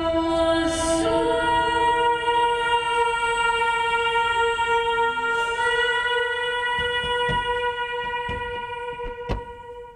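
Ambient music of long held notes, shifting to new notes about a second in and fading toward the end, with a few soft clicks in the last few seconds.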